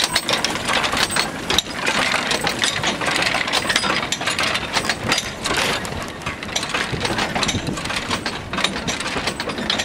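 The Steam Elephant replica early steam locomotive working as it hauls its train of wagons past, a busy irregular clanking and clattering of running gear and wheels on the rails over a steady steam hiss.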